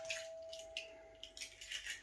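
A freshly cracked egg dropping into a large enamel bowl while the bowl rings faintly and fades out, with a few small soft taps of eggshell.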